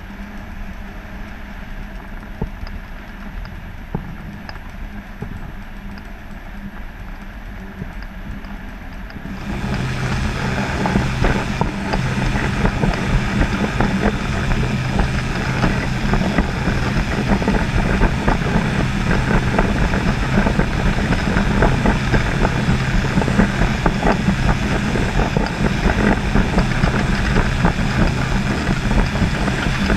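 A motor running steadily with a low hum that gets markedly louder about nine seconds in.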